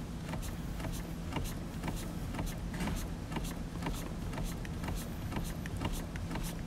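Clutch pedal of a manual 2014 C7 Corvette Stingray being pumped over and over, giving a run of light clicks and knocks several times a second. The pumping pushes freshly added DOT 4 fluid through the hydraulic clutch lines.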